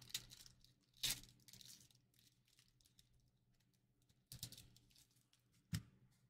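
A Pokémon trading-card booster pack's foil wrapper being torn open and crinkled by hand, in a few short rustling bursts with quiet between: one at the start, one about a second in, a cluster a little past four seconds and a sharp short one near the end.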